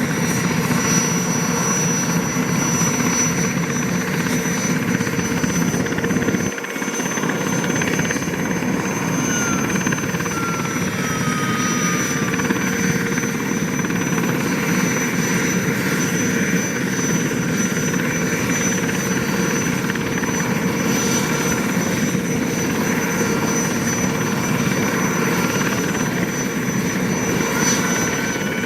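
SA-330L Puma helicopter's twin Turbomeca Turmo turboshaft engines running on the ground during startup: a steady turbine whine with a constant high whistle over a dense rushing noise. The low end drops out briefly about six and a half seconds in.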